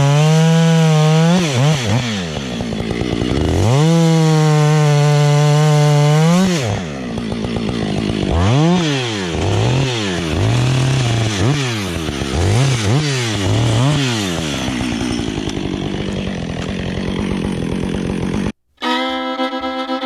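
Husqvarna 555 two-stroke chainsaw running at full throttle, its pitch dropping and recovering as the chain loads up in wood, then revving up and down about once a second. Near the end it cuts off abruptly and fiddle music begins.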